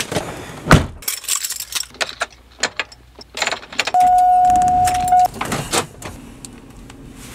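Keys jangling and rustling in a pickup truck's cab, with a heavy door thud about a second in. About four seconds in the engine is cranked with the key and catches, then settles to a low steady idle.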